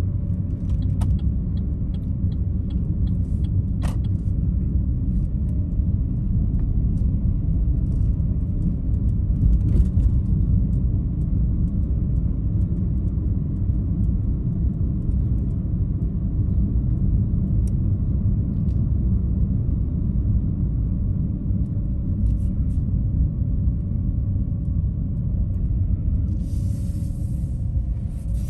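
Car driving at low speed, heard from inside the cabin: a steady low rumble of road and engine noise. A short run of faint, evenly spaced ticks comes about a second in.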